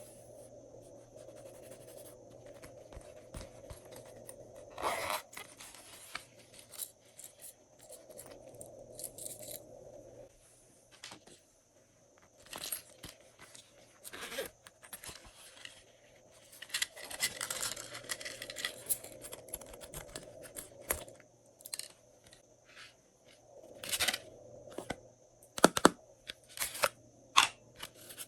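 Glossy slime being kneaded and stretched by hand: soft sticky rustling at first, then many sharp clicks and pops as it is folded and pulled apart, thickest near the end.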